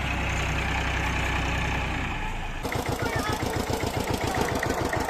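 Tractor engine running. A steady low hum gives way abruptly, about halfway through, to a chugging beat of roughly eight firing pulses a second.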